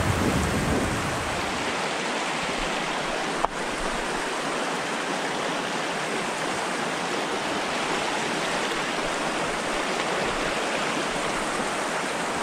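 Steady rushing and burbling of a shallow, rocky creek flowing over stones, with one brief click a few seconds in.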